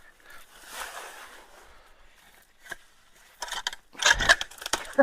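Scraping and knocking as leaves and debris are worked loose from a clogged concrete culvert. It starts faint and becomes a loud cluster of knocks and scrapes in the last second and a half.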